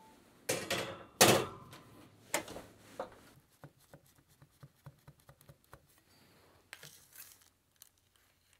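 A metal cake pan slides onto an oven rack and the oven door shuts with a thud about a second in. After that, a knife cuts through a baked cake onto a wooden cutting board, with a string of light clicks and scrapes.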